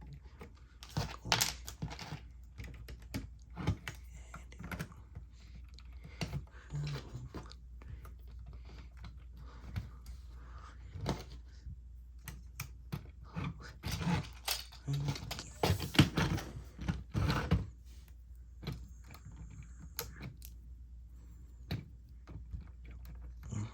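Lego plastic pieces being handled and pressed back together: irregular clicks and light knocks, coming thickest about two thirds of the way through.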